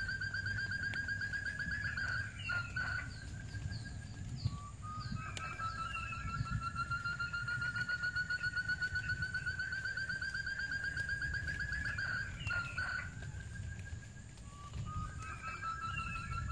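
Forest quail calling: a long, fast trill that rises slowly in pitch over several seconds, heard in full once (about 4 s to 12 s in). Another trill ends about 2 s in and a new one starts near the end, with short higher call notes in between.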